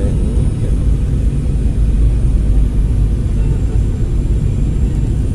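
Steady low rumble of a jet airliner's engines and airflow, heard from inside the passenger cabin over the wing as the aircraft descends on approach to land.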